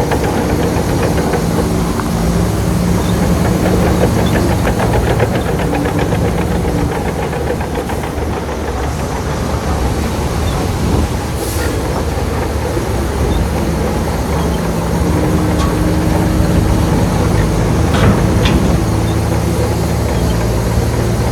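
Heavy diesel construction machinery working: a big engine running under load, its note fading in the middle and coming back strongly, with a stretch of rhythmic metallic clatter early on.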